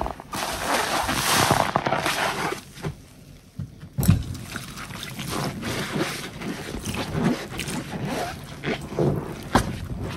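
Large soapy sponge squeezed and plunged in a basin of thick dish-soap suds: wet squelching and sloshing, beginning with a couple of seconds of hiss, with one sudden sharp splat about four seconds in followed by a string of short squelches.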